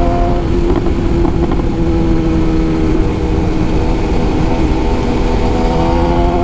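BMW S1000R inline-four engine under way on the road. The engine note climbs, breaks off about half a second in as it changes gear, then holds nearly steady and begins climbing again near the end. Heavy wind noise on the microphone runs underneath.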